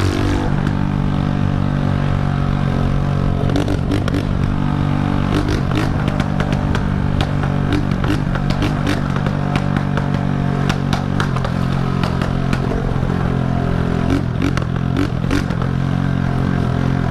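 Honda CG125's single-cylinder four-stroke engine running loud under way, its pitch rising and falling a few times with the throttle, with scattered short clicks and clatter.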